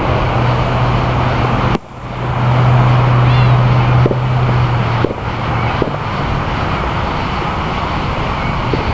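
Fireworks display: a few sharp reports of aerial shells bursting, about four seconds in and again around five and six seconds, over a steady loud noisy background with a low hum that fades out about five seconds in.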